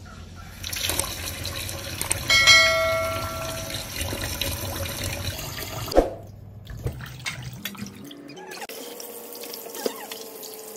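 Tap water running and splashing into a stainless steel bowl of fish in a steel sink as the fish are rinsed by hand. About two seconds in, a bright chime rings and fades over about a second, and there is a sharp click about six seconds in.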